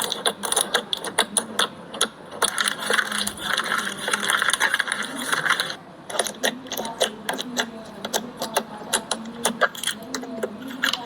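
Slime being squeezed and poked by hand, making a fast, irregular run of wet clicking pops, with a denser crackle from about two to six seconds in.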